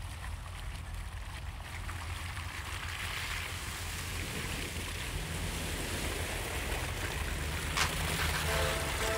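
Wind rumbling on the microphone under a steady rushing wash of noise that slowly grows louder.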